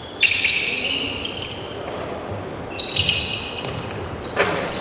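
Basketball shoes squeaking on an indoor court floor, several high squeaks overlapping in quick succession, with short thuds of the basketball.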